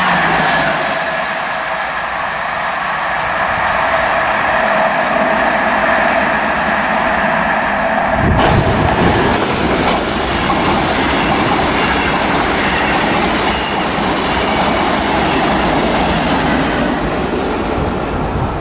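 Passenger coaches in Intercités livery rushing past at speed, their wheels on the rails making a steady high whine over the rumble. About eight seconds in the sound changes abruptly to a second train, double-deck V2N coaches with a BB 15000 electric locomotive, rumbling past on its wheels and easing off near the end.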